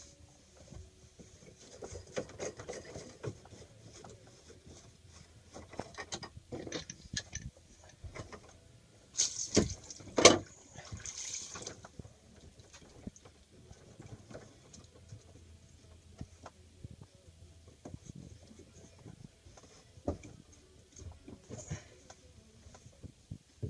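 Plastic clicks, knocks and scraping as an Airmar paddlewheel log sensor is pushed into its through-hull housing in place of the blanking plug and its cap is turned down by hand. The loudest is a couple of sharp knocks about ten seconds in.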